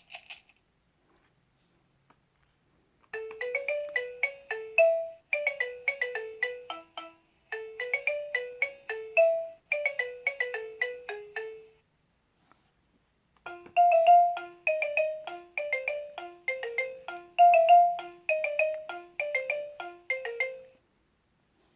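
Laugh and Learn toy laptop playing a short electronic melody of quick, bright notes like a ringtone, stopping about twelve seconds in, then playing a second tune after a short pause.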